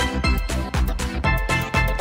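Background music with a steady, fast beat and strong bass.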